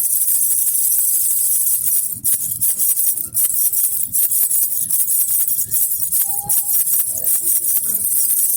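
Baby rattle with small jingle bells being shaken continuously, a dense high-pitched jingling and rattling with an uneven rhythm of strikes.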